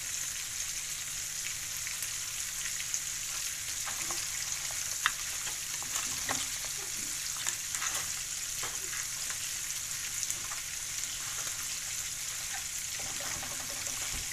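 Crab masala with freshly added curry leaves sizzling steadily in a clay pan, while a wooden spatula stirs it with scattered clicks and taps against the pan. The sharpest tap comes about five seconds in.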